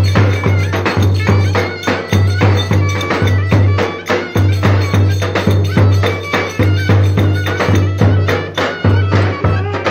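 Turkish folk dance music with a steady, heavy bass-drum beat, quick percussion strikes and a melody line over it.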